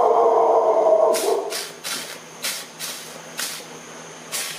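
Small hand-held trigger sprayer misting water onto a green-sand mold. A longer spray with a whistling tone in it comes first, then about six short puffs.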